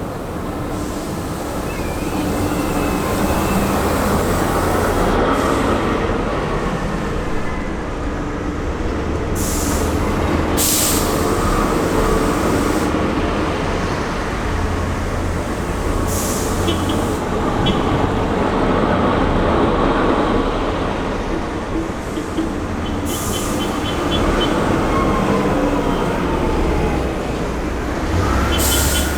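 Heavy amphibious bridging vehicles' diesel engines running with a steady deep rumble. Short bursts of hissing come about five times, and faint small ticks run underneath.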